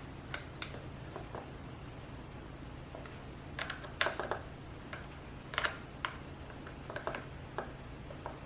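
Scattered metal clicks and clinks of a hand tool as a bolt on the ZWO AM5 mount's pier adapter is tightened down, a few sharper clinks about halfway through, over a steady low hum.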